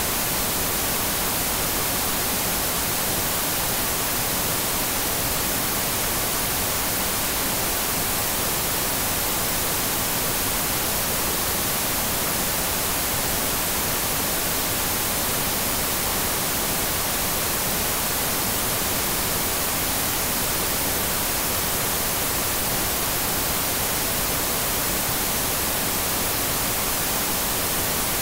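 TV static: a steady, even hiss of white noise, brighter toward the high end, with no change in level.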